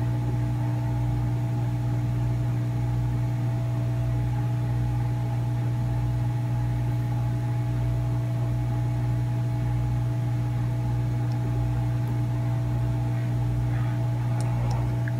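Hot air rework station blowing steadily onto a circuit board to melt the solder on tiny surface-mount resistors: a constant hum with several steady tones over it. A couple of faint ticks near the end.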